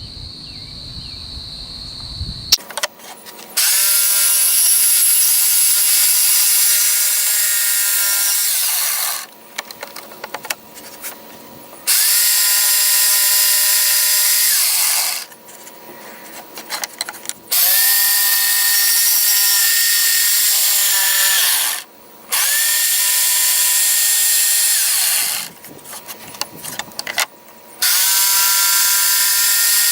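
Electric jigsaw cutting 3/4-inch plywood in about five runs of a few seconds each. The motor's whine rises as it starts and falls away as it stops, with clicks and rattles in the pauses between runs.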